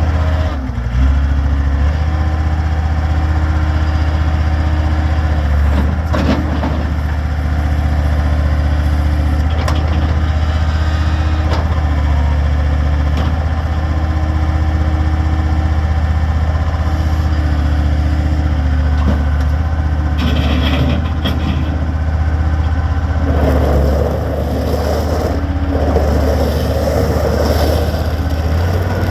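John Deere 332 skid steer's four-cylinder turbo diesel engine running with a steady low drone. A harsher, noisier sound joins in about three-quarters of the way through.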